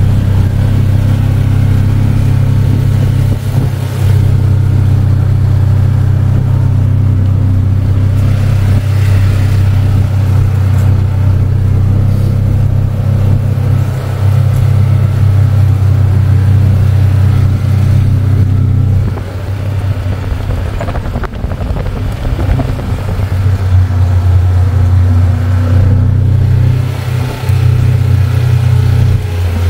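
Polaris off-road vehicle engine running steadily while driving along a rough trail, easing off about two-thirds of the way through and then picking up again.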